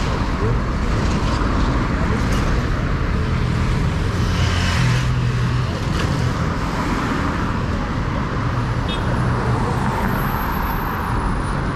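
City street traffic: cars and a motorcycle driving past with engine hum and tyre noise, steady throughout, with one louder pass about four to five seconds in.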